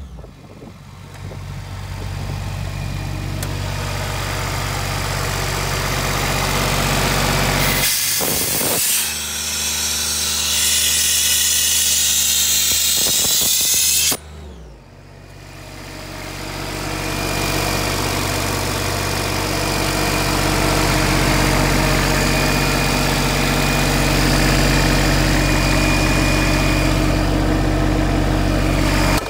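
Doosan 7/20 diesel air compressor running steadily. From about eight seconds in to about fourteen, a loud hiss of compressed air blowing from an opened outlet valve, cutting off suddenly.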